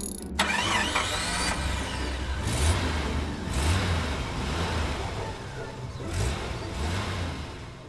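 Car engine revving, with a rushing whoosh of noise and a few low, evenly spaced thumps, fading near the end.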